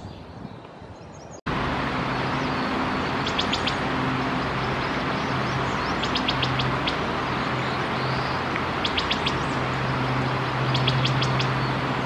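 A wood thrush calling: four quick runs of short, high, clipped notes, about one run every two to three seconds, starting about three seconds in. Under the notes is a loud, steady rushing noise with a low hum, which starts abruptly about a second and a half in.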